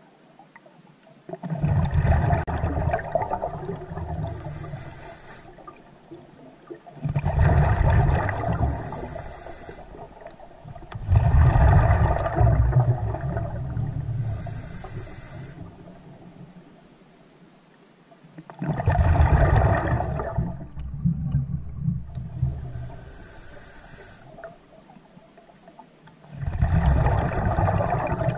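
Scuba diver breathing underwater through a regulator: a gush of exhaled bubbles that fades away, then a short hiss of inhaling, repeating about every five to eight seconds.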